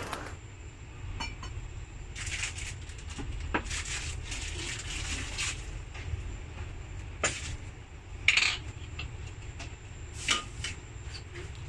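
Crockery and cutlery clinking and knocking lightly and irregularly, with one sharper ringing clink about eight seconds in, over a low steady hum.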